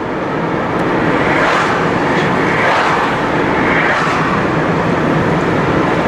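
Steady road and wind noise heard through the car's open side window while driving at road speed, with a few swells as oncoming cars pass.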